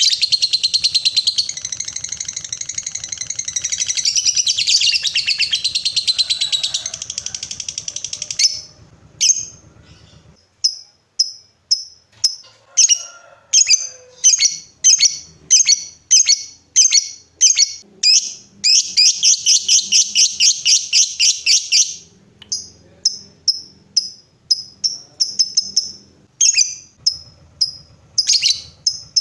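Lovebird singing its long rapid chattering trill, the 'ngekek' prized by keepers. The high-pitched trill runs unbroken for about eight seconds, then breaks into single sharp chirps at about two a second. A second continuous trill of about three seconds comes a little past the middle, then more chirps, and the trill starts again near the end.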